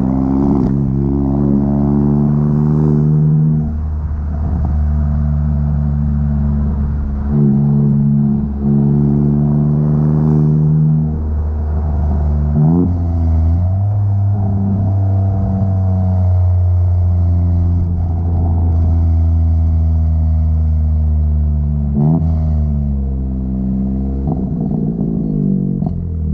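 Chevrolet Onix RS's 1.0 turbo three-cylinder engine through an aftermarket sport exhaust (Luzian LA011 intermediate muffler and rear muffler), droning while driving. It holds steady revs between sudden pitch changes every few seconds, with a short rev rise about halfway through.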